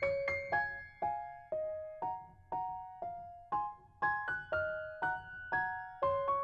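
Background music: a gentle piano melody, single notes struck about twice a second and left to fade.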